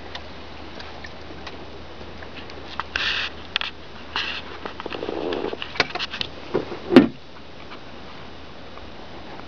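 Handling and movement noises in a small fishing boat: scattered clicks, two short rustling hisses, a dull thump, and a sharp knock about seven seconds in, over a faint steady hum.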